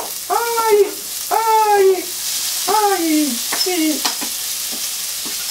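Chopped takana greens tipped into a hot frying pan of sesame oil, sizzling and spitting as they hit the oil. Over the sizzle come about five short pitched sounds, each rising then falling, in the first four seconds.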